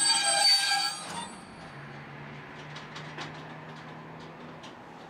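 A loaded freight train's log wagons squeal, several high steady pitches at once, as the train creeps to a halt; the squeal cuts off about a second in. A low steady hum and a few faint scattered clicks follow.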